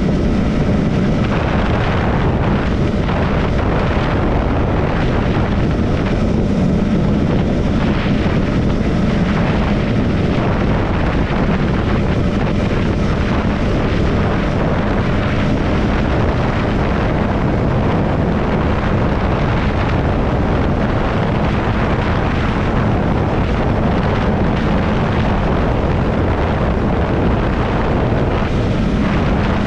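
Triumph Scrambler 400 X's single-cylinder engine running at a steady cruise on the road, with wind noise on the microphone.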